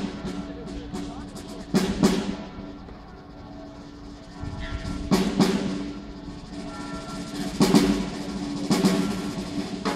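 Ceremonial music: heavy drum beats, mostly in pairs, every two to three seconds over steady held notes.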